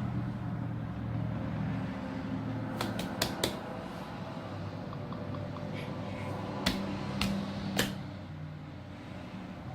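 Sharp taps on the hard plastic shell of a Hatchimals egg, in two quick groups of three, over a low steady hum.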